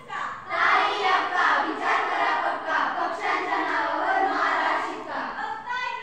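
A group of young women's voices shouting together, loud and sustained, starting about half a second in and dying away about five seconds in.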